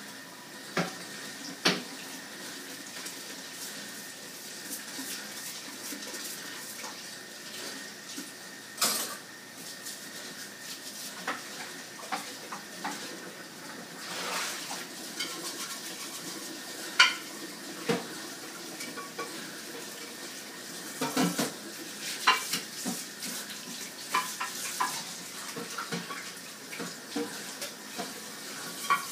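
A steady rush like running water, with scattered light clicks and knocks of small things on hard surfaces.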